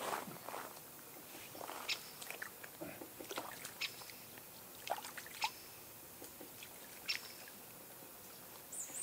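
Light water sloshing with scattered small clicks and rustles as a landing net is worked in the shallows to release a crucian carp.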